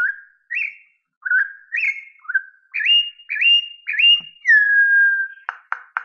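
A bird singing. It gives a series of short, clear whistled notes, each sweeping up in pitch, then one long note sliding down, and near the end breaks into a fast, even trill.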